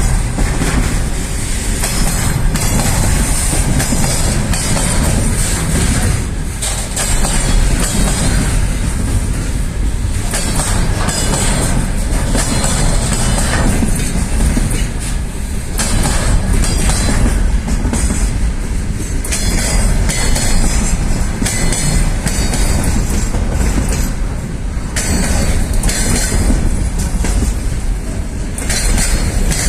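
Freight train wheels clattering over the rails: a continuous loud rumble broken by irregular knocks, with a high hiss over it.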